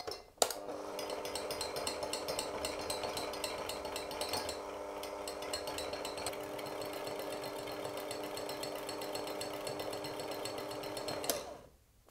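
Handheld electric kitchen mixer switching on about half a second in and running steadily at one speed, beating egg yolk, mustard and oil into mayonnaise, then switching off near the end.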